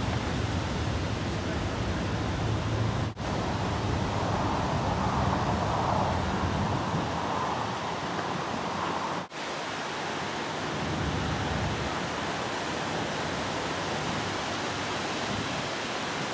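Steady rushing noise of wind on the camera microphone, with three brief dropouts.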